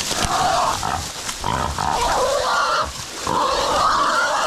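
Feral pig squealing, about three long, loud squeals with wavering pitch, the distress squeal of a pig caught by hunting dogs.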